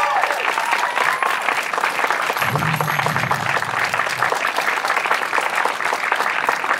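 Crowd cheering and applauding, with dense, rapid clapping.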